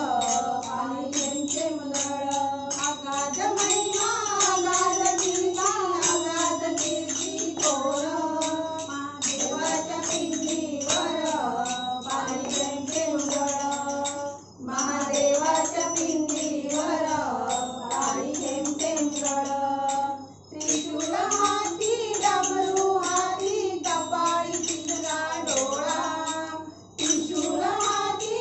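Group of women singing a Marathi bhajan together, keeping a steady beat with small hand cymbals struck in time. The singing breaks briefly between lines three times, about halfway through and twice near the end.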